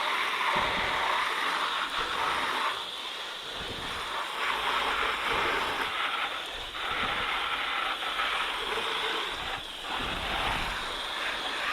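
Water spraying onto a motorcycle's bodywork during a rinse: a steady hiss of spray in several spells with short breaks between them.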